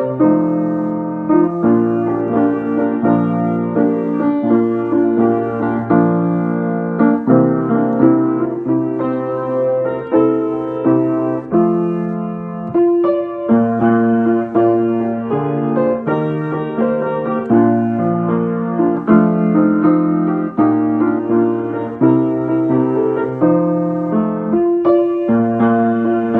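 Solo piano playing a slow piece of held chords and melody notes.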